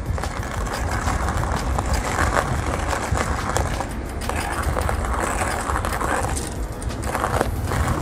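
Hand-cranked coffee grinder with ceramic burrs crushing whole dark-roasted coffee beans as the handle turns: a steady, rough crunching grind with crackly grit.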